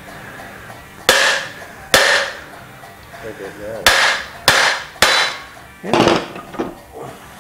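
Hammer striking a steel punch to drive a U-joint bearing cup down out of a truck driveshaft yoke held in a vise. There are about six sharp, ringing metal blows at uneven gaps, followed by a few lighter taps near the end.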